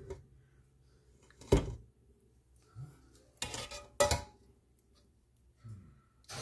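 Metal pot and mesh strainer clanking as boiled apples are drained: a few sharp knocks, the loudest about a second and a half in and about four seconds in, the second with a brief metallic ring.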